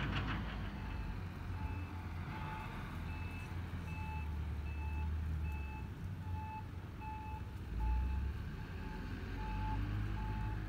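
A vehicle's reversing alarm beeping at an even pace, about three beeps every two seconds, over the low rumble of an engine that swells briefly about eight seconds in.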